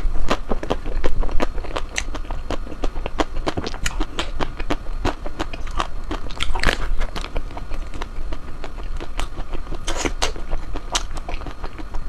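Close-up eating of ice cream: a steady run of wet biting and chewing clicks, several a second, with a few louder bites about a second in, near the middle and toward the end.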